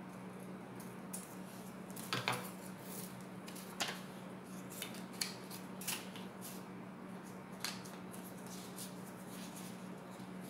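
Scissors cutting paper: a handful of sharp snips, irregularly spaced a second or two apart, over a steady low hum.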